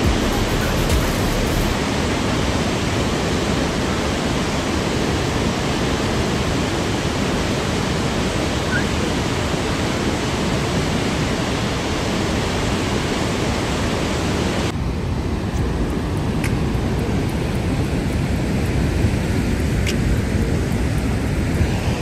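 The Rhine Falls: a large volume of falling and churning river water, a loud, steady rush with no breaks. About fifteen seconds in, the higher hiss drops away and the rush turns duller and deeper.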